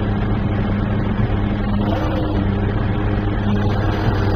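A crane's engine running steadily, heard from inside the operator's cab while the crane holds a suspended concrete block.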